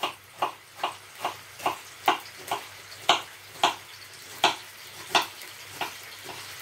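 Kitchen knife chopping a green pepper on a wooden chopping board: a steady run of sharp knocks, about two a second, a little slower near the end. Under it, a faint sizzle of sliced lamb frying in a wok over a gas flame.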